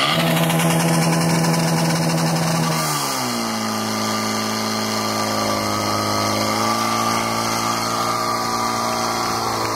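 Portable fire-pump engine starting abruptly and running hard at a steady high pitch. About three seconds in, its pitch drops and settles lower as the pump takes the load of driving water out through the hoses.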